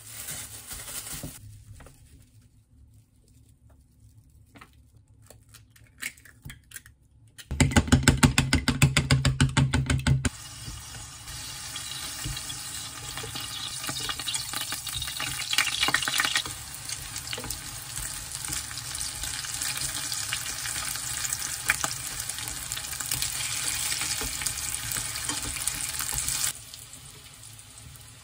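Egg-dipped zucchini slices sizzling steadily as they fry in oil in a frying pan, after a few seconds of loud, fast rhythmic clattering. The sizzling cuts off near the end.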